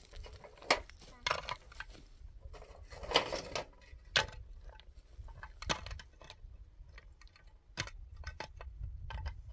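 Irregular light clicks and knocks, about two a second, with one louder patch about three seconds in.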